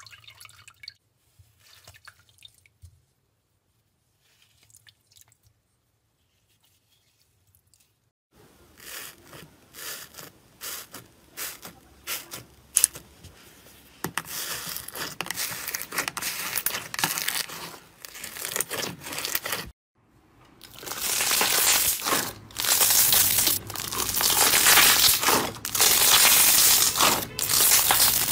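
Hands squishing and stretching slime. It is faint and sticky at first. From about eight seconds in, a run of crackling clicks and pops comes in as the bubbly slime is pressed, and from about twenty seconds in it turns into a loud, dense crackling and tearing as a fluffy slime is stretched.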